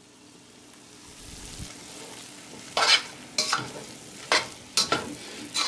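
Potato and fenugreek sabzi sizzling faintly in a stainless steel pan, then a spatula scraping and stirring it against the pan, about five strokes in the second half.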